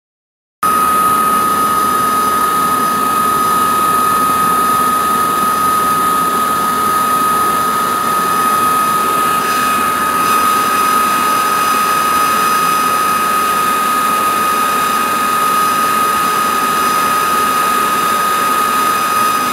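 Air blower forcing air into a backyard coal-fired foundry furnace, running steadily: a rushing roar with a constant high whine. It starts abruptly about half a second in.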